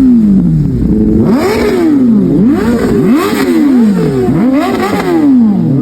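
High-revving engine blipped by throttle about five or six times in quick succession: each rev climbs sharply in pitch and falls back before the next.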